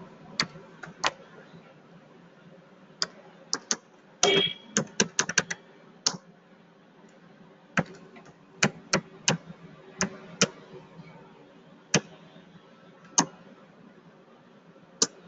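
Computer keyboard being typed on: separate key clicks at uneven spacing, with a quick flurry about four seconds in and single keystrokes after.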